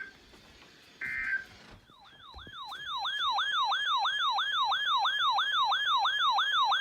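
Electronic emergency-alert siren: a yelping tone sweeping up and down about three times a second. It starts about two seconds in, after a short electronic beep-burst about a second in, and sounds the attention signal for an incoming flash flood warning.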